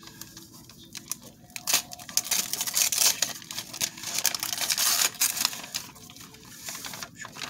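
Christmas gift-wrapping paper being torn and peeled off a small cardboard box: a quick run of rips and crinkles, busiest from about two to five seconds in.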